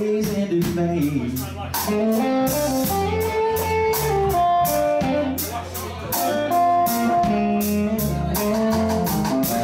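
Live blues band playing: electric guitar lines with bent notes over bass guitar and drum kit.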